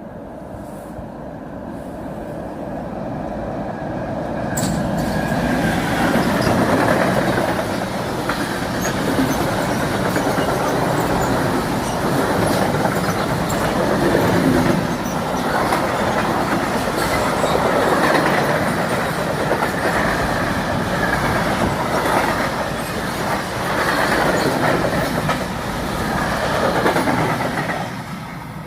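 Hectorrail freight train passing, its wagon wheels rumbling and clattering on the rails with scattered squeals. It builds over the first few seconds, stays loud with repeated swells, and drops off near the end.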